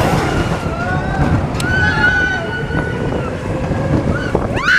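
Space Mountain roller coaster train rumbling along its track in the dark, with riders' short squeals and voices over it, and a rising shriek near the end.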